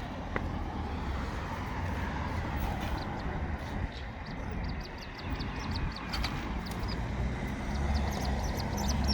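Small birds chirping in quick, short high notes from about three and a half seconds in, over a steady low rumble.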